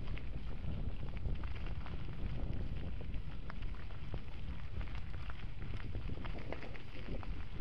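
Bicycle tyres rolling over a gravel forest track, with irregular crunches and pops of loose stones under the wheels over a steady rumble of wind on the microphone.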